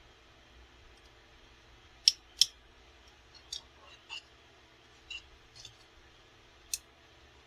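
Sharp plastic clicks and taps from a transforming robot toy figure's parts as an accessory is tried against a slot in its paw. There are about seven clicks: two louder ones about two seconds in, then fainter, scattered ones.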